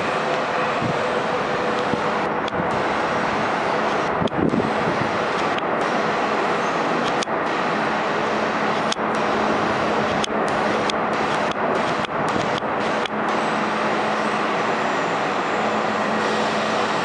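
R42 subway train standing at an elevated platform: a steady rushing noise with a faint low hum under it, and a single thump about four seconds in.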